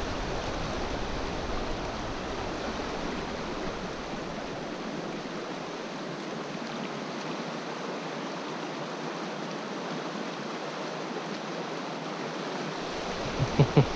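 Steady, even rush of a fast-flowing mountain trout stream running over rocks.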